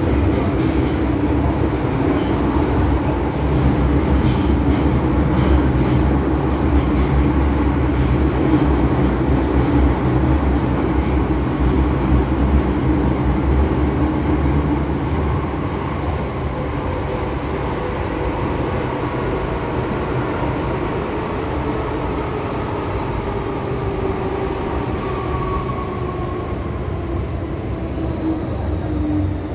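MTR M-Train electric multiple unit running through a tunnel, heard from inside the car: a steady loud rumble with a motor whine. Over the second half the whine falls in pitch and the noise eases a little as the train slows.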